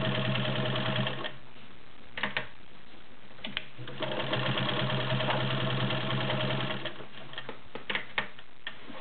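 New Home Janome model 671 all-metal sewing machine stitching through five layers of denim with a size 16 needle. It runs steadily, stops about a second in, starts again about four seconds in and runs for about three seconds. A few sharp clicks come in the pauses.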